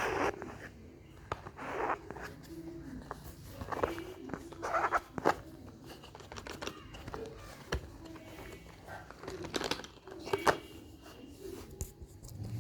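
Packaging being opened by hand: irregular rustling, tearing and crinkling with scattered clicks and scrapes as a boxed wireless microphone kit is unpacked.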